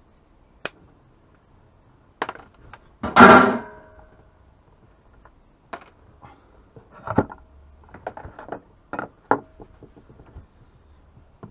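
Hand tools and metal chainsaw parts being handled on a workbench: scattered knocks and clinks, with a loud metallic clatter that rings briefly about three seconds in and another run of clinks and knocks later on.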